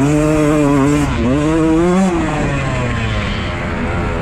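Beta 125 two-stroke single-cylinder enduro motorcycle engine revving hard under throttle while being ridden. Its pitch climbs to a peak about two seconds in, then falls away as the throttle closes.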